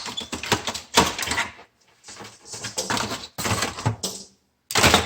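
Irregular clicking, rattling and scraping of plastic and metal parts being handled while a vacuum sealer is taken apart, in short bursts with brief gaps between them.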